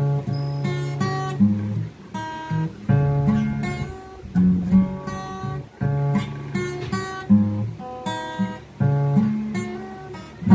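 Solo cutaway acoustic guitar playing a slow instrumental tune: chords plucked and strummed with the fingers, a bass note moving under them, a new chord about every second.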